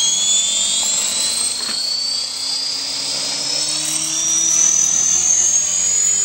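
450-size radio-controlled helicopter's motor and rotor whining steadily, the pitch rising as the rotor spins up and levelling off near the end.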